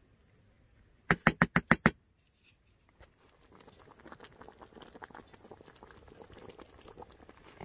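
A quick run of about seven sharp knocks, then a soft, dense crackling patter.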